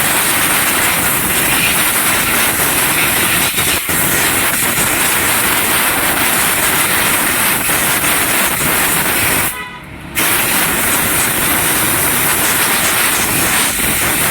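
Loud, steady rushing hiss that covers everything, cutting out briefly for about half a second about two-thirds of the way through.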